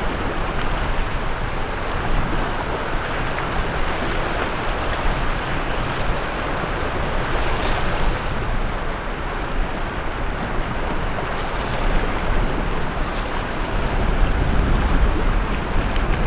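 Sea surf washing onto the beach in a continuous wash of breaking waves. Wind rumbles on the microphone, growing stronger near the end.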